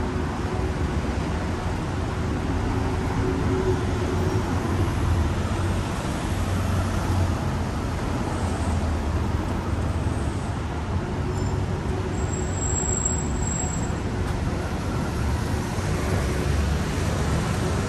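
Steady road traffic: cars and buses running along a busy street, a continuous low rumble.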